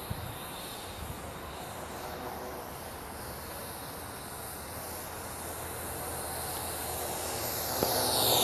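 Parrot AR.Drone quadcopter's rotors whirring in flight, steady at first and growing louder near the end, where a high whine falls in pitch.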